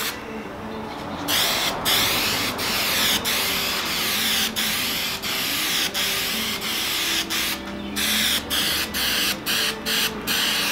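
Aerosol can of 3M Hi-Strength 90 spray contact adhesive hissing as a coat is sprayed on in sweeping passes. It starts about a second in and is broken by brief pauses, which come quicker toward the end as the spray is let off in short bursts.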